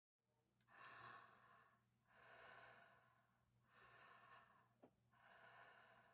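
A person breathing faintly and slowly: four breath sounds, each about a second long, coming at an even pace. A short click sounds between the last two breaths.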